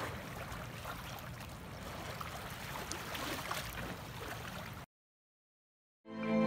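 Small waves lapping against rocks at the water's edge, a soft steady wash with faint splashes; it cuts off suddenly and, after a second of silence, soft music fades in near the end.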